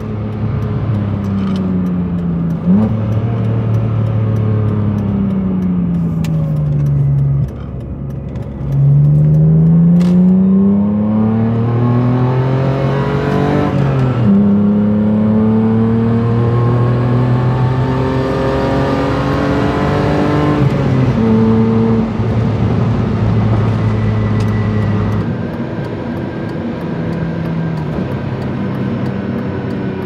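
BMW E46 330i ZHP's M54 3.0-litre inline-six, heard from inside the cabin. The revs fall away, then climb under acceleration for several seconds, with sudden drops in pitch at upshifts. It settles to a steadier, quieter cruise near the end.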